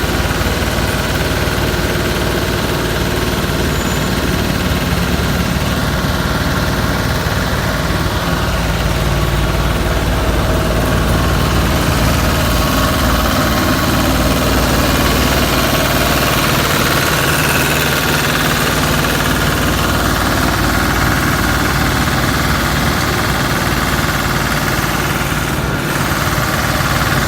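Engine of a large self-propelled concrete cutting saw running steadily, with a brief click near the end.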